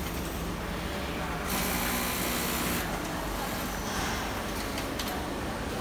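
Sewing-floor machinery noise: industrial sewing machines running over a steady hum of the hall, getting louder for just over a second about a second and a half in.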